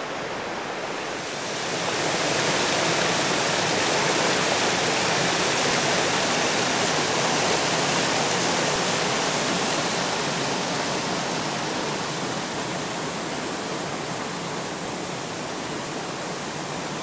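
River water rushing and splashing over rocks and into pools, a steady rush that swells about two seconds in and eases slightly in the second half.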